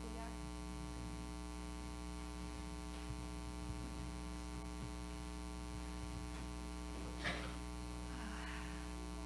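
Steady electrical mains hum in the recording, with a short soft burst of noise about seven seconds in.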